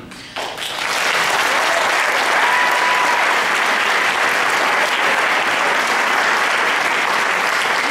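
Audience applauding, starting about half a second in and holding steady throughout.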